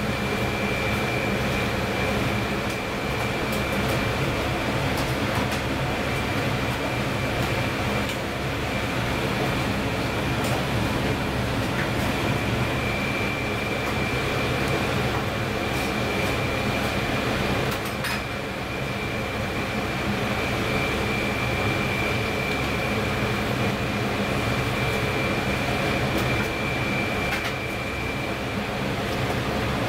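Steady mechanical hum and hiss, with a faint high whine through most of it and a few light clicks, in a kitchen where a pot of broth is boiling on a lit gas burner.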